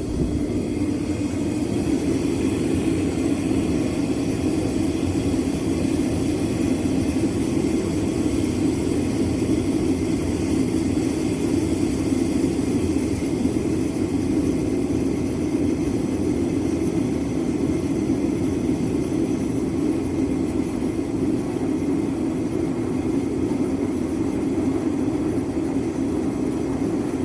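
Bauer propane forced-air heater running, its fan and burner making a steady rushing hum as the gas is turned down from maximum to its lowest setting; the sound stays much the same throughout.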